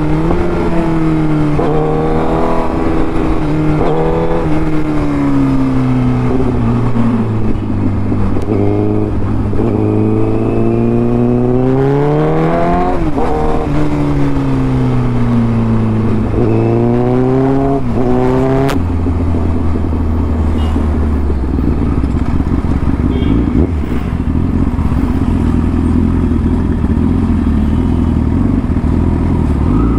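Honda Fireblade's inline-four engine being ridden hard, its pitch repeatedly climbing and dropping as the throttle opens and the rider shifts and rolls off. About two-thirds of the way through it drops to a low, lumpy rumble as the bike crawls in slow traffic.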